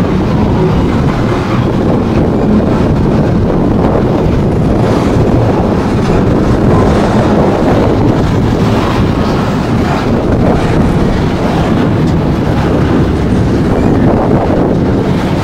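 Loaded coal hopper cars of a freight train rolling past at close range: a loud, steady rumble of steel wheels on the rails, with scattered clicks as the wheels cross rail joints.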